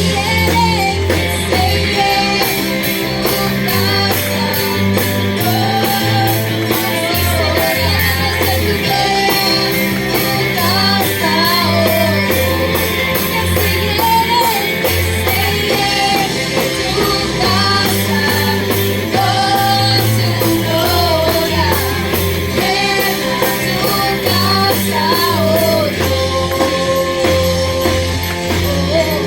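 Worship song played by a band: bass notes changing every second or so, drums with a steady cymbal beat, and guitar, with a wavering melody line carried on top.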